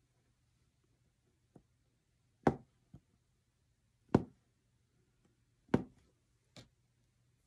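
Embroidery punch needle stabbing through fabric stretched tight on a frame: a few short, sharp pops, three louder ones about a second and a half apart with fainter ones between.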